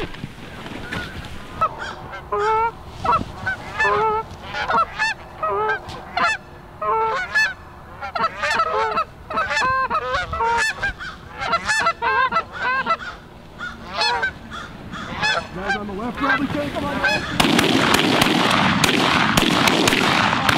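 A flock of Canada geese honking, many short overlapping calls coming thick and fast. Near the end a loud rushing noise rises over them.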